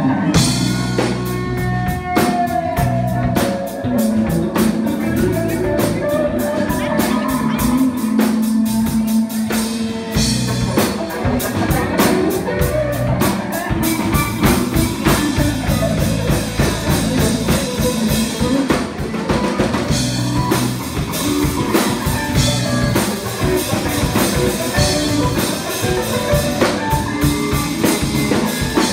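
Rock music with drum kit and guitar.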